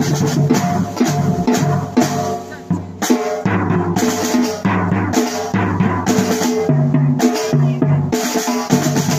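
Music with a full drum kit playing a steady beat under a sustained bass line.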